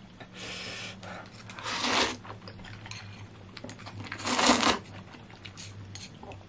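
Noodles being slurped from a bowl, with light clicks of chopsticks against the ceramic bowl; the loudest slurp comes about four and a half seconds in.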